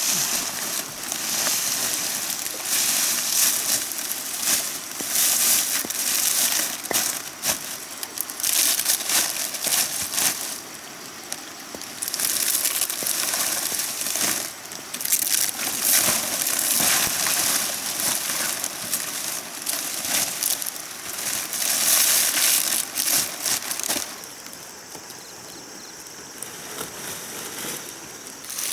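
Irregular rustling and crunching noise in uneven bursts, dropping quieter near the end.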